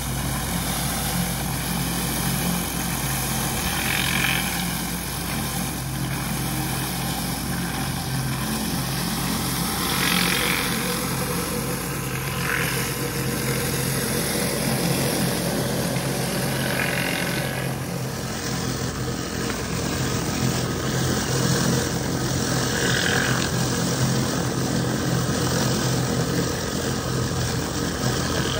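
Pressure washer running steadily while a surface cleaner is pushed over concrete: a constant engine hum under the hiss of its spinning spray bar blasting the surface.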